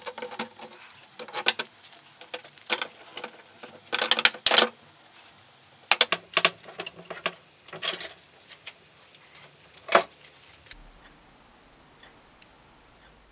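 Metal clamps being handled and tightened onto wooden knife-handle scales: irregular sharp clicks and clacks, some in quick clusters. They stop about ten seconds in, leaving a faint hum.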